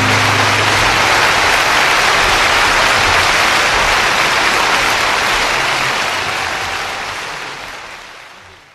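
Audience applause as the song ends, fading out over the last few seconds.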